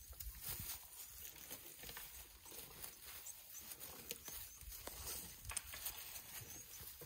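Dry grass and twigs crackling and rustling in irregular small snaps as elephants walk and feed through dry bush.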